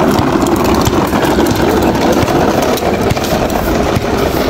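Hard plastic wheels of a child's ride-on toy rolling over rough, cracked asphalt: a steady, loud rumble with constant rattling.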